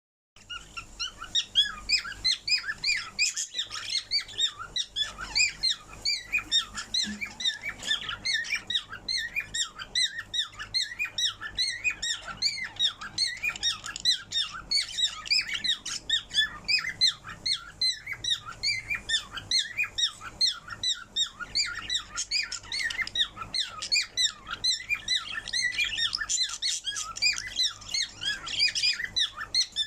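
Parrot chirping and chattering: a continuous stream of short, high chirps and squeaks, several a second.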